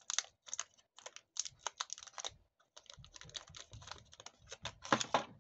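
Thin protective plastic film crackling and crinkling as fingers peel it off a smartwatch case, in a quick irregular run of small clicks, with the loudest crinkle near the end.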